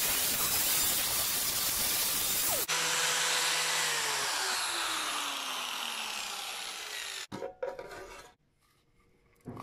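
Angle grinder with a sanding disc sanding body filler on a steel wheel arch: a loud, steady abrasive rush. About two and a half seconds in, the sound cuts to the grinder winding down, its pitch falling as it fades. It dies out about seven seconds in.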